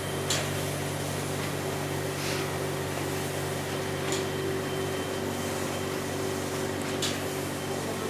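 Ship's engine running with a steady low hum made of several even tones, not yet winding down, with a few faint brief clicks a few seconds apart.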